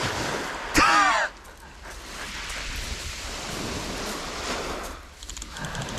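A man's loud startled cry about a second in, then small waves washing steadily on a shingle beach, with a few crunching steps on the pebbles near the end.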